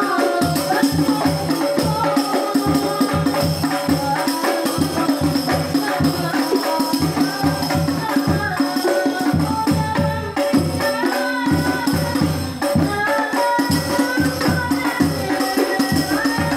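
Sholawat sung by boys' voices over a darbuka and rebana frame drums. The drums beat a fast, steady rhythm of deep strokes under the melody.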